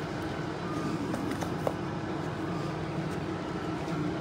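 Steady low background hum, with a few faint clicks and taps about a second and a half in.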